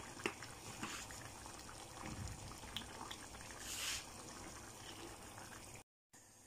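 Cabbage and chicken giblets stewing quietly in a frying pan, with soft clicks and a brief scrape of a spatula stirring the stew about four seconds in. The sound cuts off abruptly just before the end.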